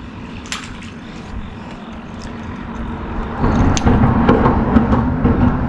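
A vehicle crossing the bridge overhead: a low rumble with a steady hum that swells up about three seconds in. A few sharp clicks sound over it.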